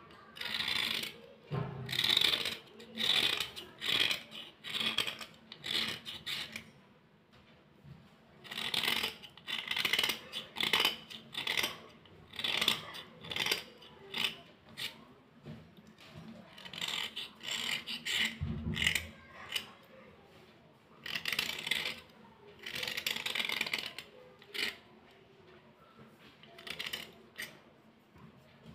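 Metal blade scraping along white slate pencils in short repeated strokes, one or two a second, scraping the surface clean and shedding powder; the strokes come in runs with brief pauses between them.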